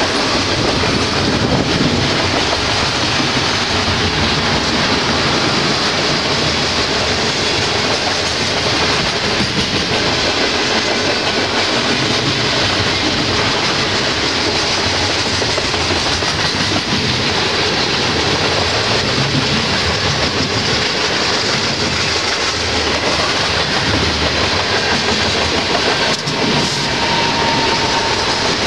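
Freight train of tank cars rolling past, a loud steady rumble and clickety-clack of wheels on rail joints, with a single knock near the end.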